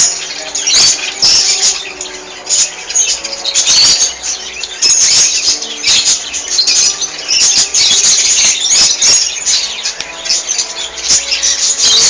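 Cage birds chattering, a dense run of high, squeaky chirps and squeals that overlap and never stop.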